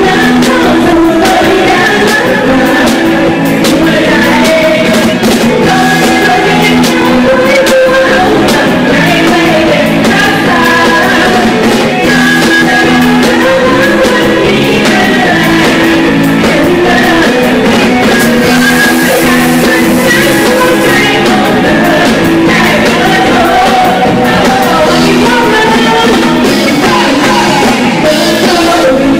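Live concert music: a singer singing into a microphone over a loud band, steady and continuous.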